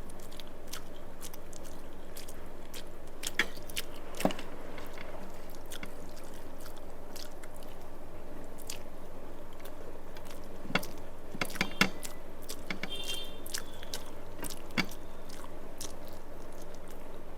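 Close-miked eating: chewing and mouth clicks from a mouthful of rice and fish curry, with scattered sharp clicks, over a steady low hum.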